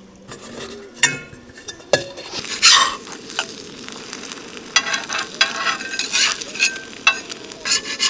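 Food sizzling in a frying pan while a utensil stirs and scrapes it, with repeated short scrapes and clicks against the pan.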